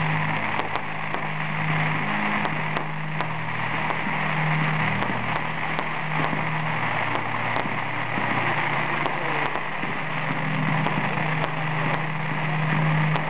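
Fireworks firing in quick succession: comets launching one after another, giving a steady crackling hiss with many small pops through it.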